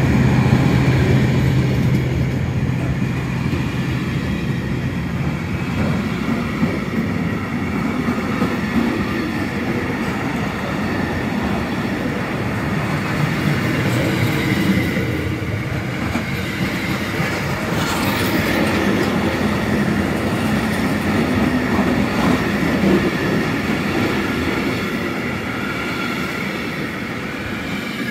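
A train passes close by, led by two locomotives whose low engine drone is strongest for the first few seconds. The wagons of a track-maintenance train then rumble and clatter over the rails until the last one has passed.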